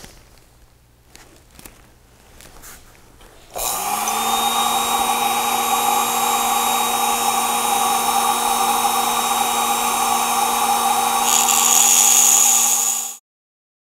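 A Foredom flex-shaft rotary tool, after a few light handling clicks, spins up about three and a half seconds in. It settles into a steady high whine as it grinds a set-screw flat onto a brushless motor shaft. A harsher, higher grinding hiss joins near the end, then the sound cuts off suddenly.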